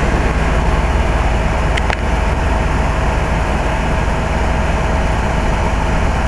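2004 Carrier 3-ton heat pump's outdoor unit running steadily in cooling mode: compressor and condenser fan giving a constant hum with a faint steady tone above it, and one brief tick about two seconds in.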